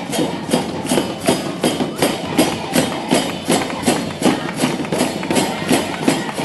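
Music with a steady percussive beat, about two to three beats a second.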